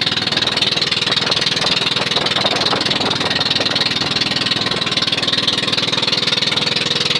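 Engine of a motorized outrigger boat (bangka) running steadily at cruising speed, heard from on board, with a fast, even chug.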